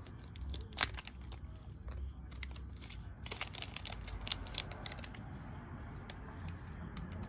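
Small packet of sour Pop Rocks candy being worked open by hand: irregular crinkling and sharp crackles of the wrapper as it resists tearing.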